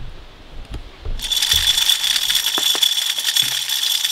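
Timer-driven spin-cast deer feeder running its motor for its three-second cycle, starting about a second in: a high, steady whine from the spinner with a rattle of corn kernels being flung out.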